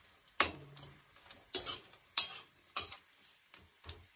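Metal spatula stirring food in a frying pan: about six sharp, irregular clinks and scrapes against the pan over a faint sizzle.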